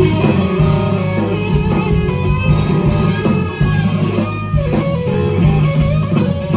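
Live blues-rock band: an electric guitar playing a lead line over drums and cymbals, loud through the club's sound system.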